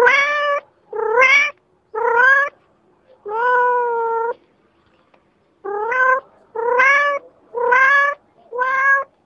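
Domestic cat meowing: eight meows, one about every second, most rising in pitch, the fourth longer and held level.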